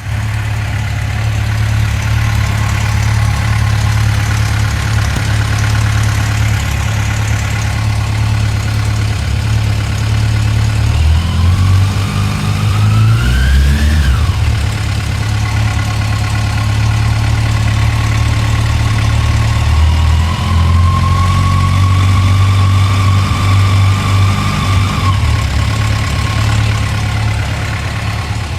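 2006 Yamaha FJR1300's inline-four engine idling warm, with the ticking noise it makes at idle once warmed up. About halfway through the revs climb and then drop back, and later they rise and hold for a few seconds before falling back to idle.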